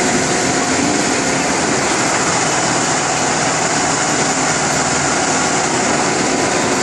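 Richpeace six-head automatic bridge-type sewing machine running steadily, its heads stitching together in a dense, even mechanical noise.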